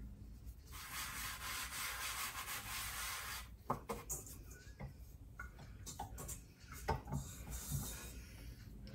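A hand rubbing and spreading flour across a wooden cutting board: a dry brushing sound for about three seconds. It is followed by a few scattered light knocks.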